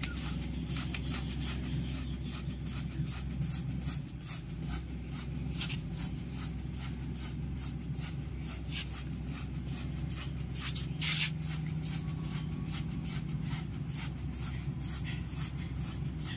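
Trigger sprayer on a plastic water bottle squirting over and over in quick succession, each pull a short hiss, over a steady low hum.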